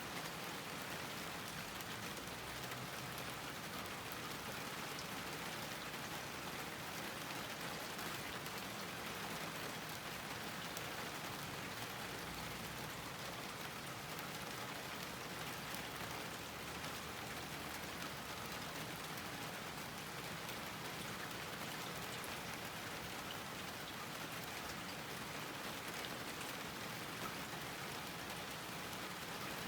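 Steady rain falling on a garden, an even hiss with many fine drop ticks.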